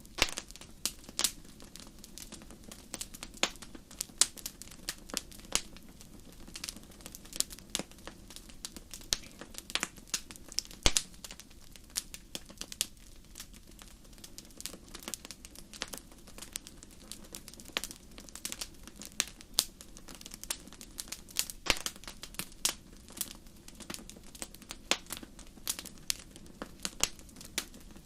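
Wood fire crackling: irregular sharp pops and snaps, several a second, over a low steady hiss, with one louder pop about eleven seconds in.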